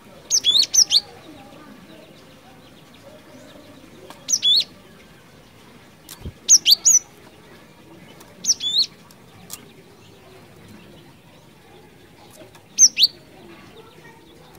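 Cinereous tit (glatik batu) singing in short, sharp phrases of quick, high sweeping notes, five phrases spaced a few seconds apart.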